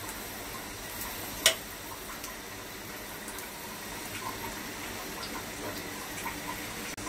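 Cashews, almonds and pistachios sizzling gently in hot ghee in a frying pan, a steady hiss. A single sharp clink about a second and a half in.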